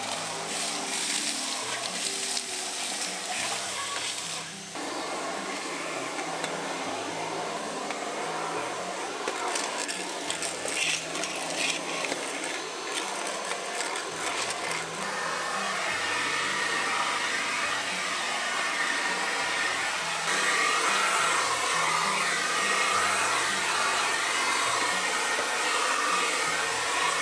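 Vacuum cleaner running steadily, its noise filling out about five seconds in and growing louder again around twenty seconds, as it cleans around a wood-burning stove's hearth. Soft background music plays underneath.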